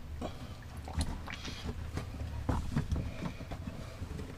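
Irregular small knocks and clicks of hands handling plastic water hoses and fittings in a motorhome plumbing compartment, over a steady low hum.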